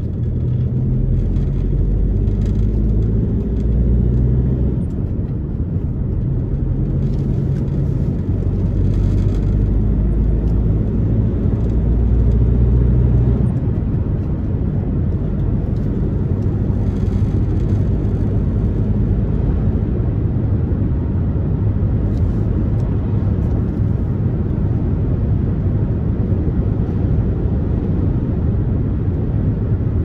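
A car driving on a road, with a steady low rumble of engine and tyre noise. The engine hum shifts in pitch a few times in the first half, then settles into an even drone.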